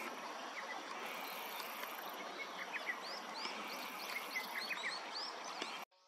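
Small birds calling in short chirps and quick upswept notes over a steady outdoor hiss and high insect trilling that comes and goes. It all cuts off suddenly just before the end.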